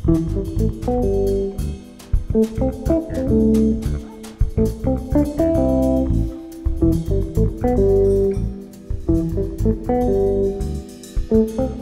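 Instrumental music without singing: plucked guitar notes in a rhythmic pattern over a bass line.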